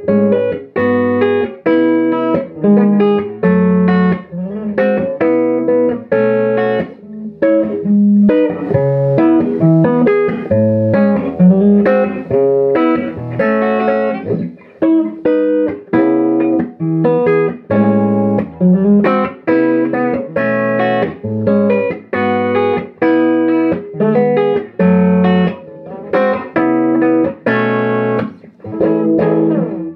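Korina Gibson Flying V electric guitar played clean through a 1964 Marshall JTM45 Bluesbreaker combo amp: a chord progression of clean, clear chords struck about twice a second.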